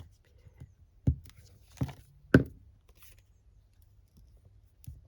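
A few sharp light taps and knocks as paper and craft supplies are handled and set down on a tabletop, the strongest three coming in the first two and a half seconds.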